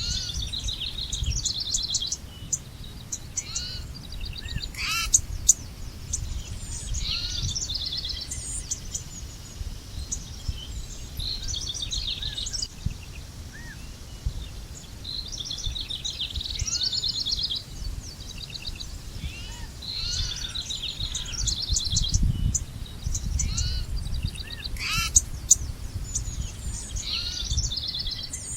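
Several songbirds singing and calling at once, a dense mix of chirps, quick trills and short repeated phrases, over a steady low rumble.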